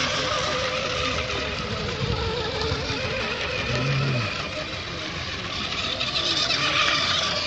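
Radio-controlled racing hydroplanes running at speed on the water: a steady high whine with a hiss, swelling about six seconds in.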